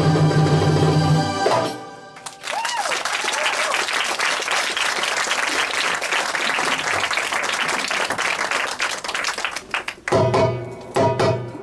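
A live Arabic ensemble of violin, oud and hand drums holds a note and cuts off about a second and a half in. The audience then applauds for several seconds, and the band starts playing again near the end.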